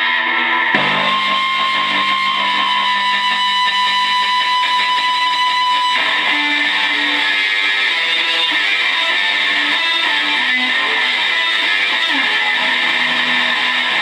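Loud, heavily distorted electric guitar noise with sustained notes. A high note is held from about a second in until about six seconds, where the sound changes to shifting lower notes.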